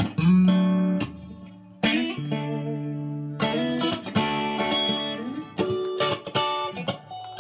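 Fender Telecaster electric guitar played clean, strumming a string of different chord voicings (inversions), each chord struck and left ringing for a second or so before the next.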